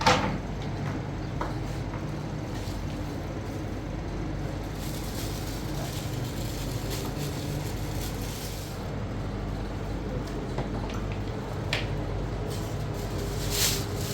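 A motor vehicle's engine running steadily with a low drone, with a sharp knock at the start and a few short clicks near the end.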